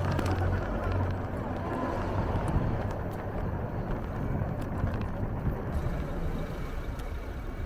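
Wind rushing over the microphone, with tyre and road noise, while riding an electric bike along a street: a steady rumbling hiss with no break.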